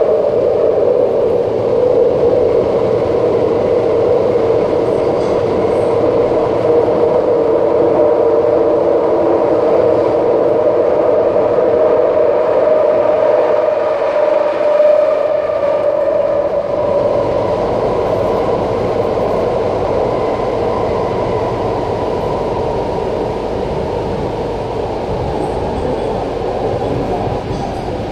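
Alstom Metropolis driverless metro train running at speed through a tunnel, heard from inside the passenger car: a steady rumble and hum of wheels on rail and traction equipment, easing slightly in loudness over the second half.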